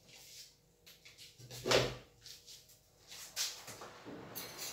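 Quiet room with knocks and bumps of household handling: one sharp thump about a second and a half in and a softer knock a little past three seconds.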